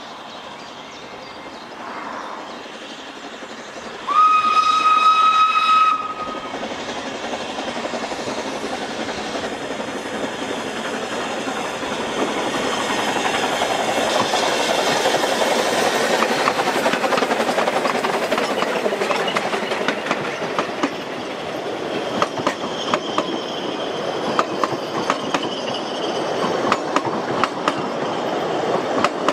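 Narrow-gauge steam train on 2 ft gauge track: a steam whistle sounds for about two seconds, starting about four seconds in, after a faint shorter toot just before. Then the locomotives' steady working noise swells as they pass, followed by the clickety-clack of carriage wheels over the rail joints.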